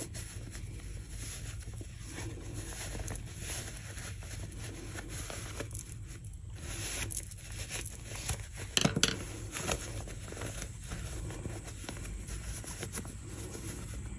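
Fabric rustling and scraping as a small sewn bag is handled and pushed right side out with a pencil, with scattered soft scrapes and a louder rub about nine seconds in.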